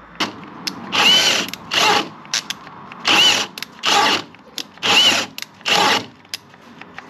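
Power drill run in six short bursts, its motor whine rising and falling with each squeeze of the trigger, with small clicks and knocks between the bursts.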